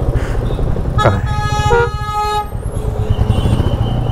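A vehicle horn honks for about a second and a half, a second horn note joining near its end. Under it the motorcycle's engine idles with a steady low pulsing.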